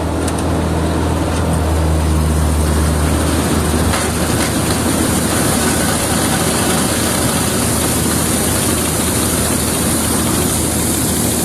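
Dania 900 self-propelled combine harvester working: its engine and threshing machinery make a steady, loud mechanical drone. The low engine hum shifts about three and a half seconds in.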